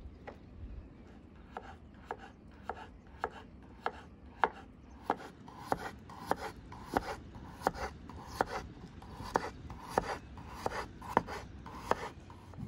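Kitchen knife slicing raw potatoes on a wooden cutting board: a steady run of chopping taps, about two a second at first, quickening to nearly three a second and growing louder from about five seconds in.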